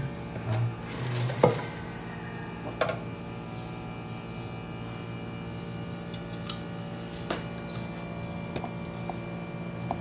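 Scattered light clicks and knocks of plastic slow-juicer parts (bowl, brush holder, auger) being handled and fitted together, over a steady low hum.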